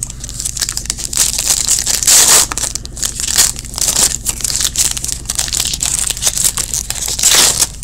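A printed plastic trading-card pack wrapper being torn open and crinkled by hand: a dense crackling, louder about two seconds in and again near the end.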